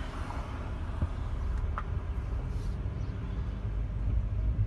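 Steady low rumble of a moving car's engine and tyres on the road.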